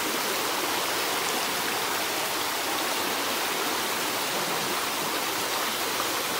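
Floodwater rushing and churning through a breach in a road, a steady, unbroken rush of turbulent water.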